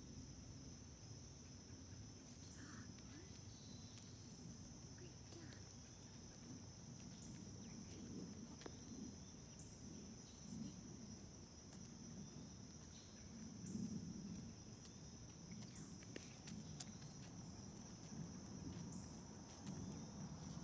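Faint, steady, high-pitched insect chorus over a low background rumble.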